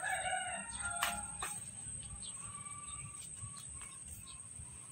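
Birds chirping over a steady high-pitched insect drone, with two sharp clicks about a second in.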